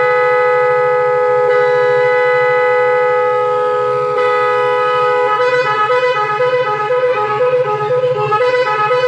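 Telolet-style multi-tone scooter horn sounding a loud, long steady chord, then about five seconds in switching to a quick warbling pattern.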